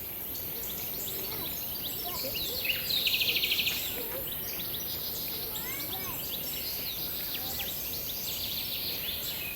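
Birds chirping and calling over a steady outdoor background hiss, with many short, high chirps. A rapid, buzzy trill about three seconds in lasts under a second and is the loudest sound.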